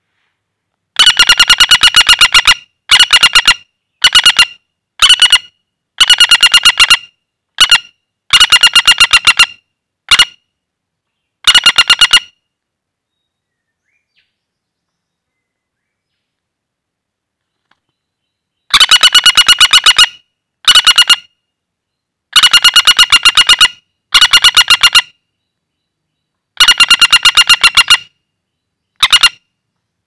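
Common flameback woodpecker (pelatuk bawang) held in the hand, giving loud, fast, trilled rattling calls in bursts of about a second each, with a pause of several seconds around the middle.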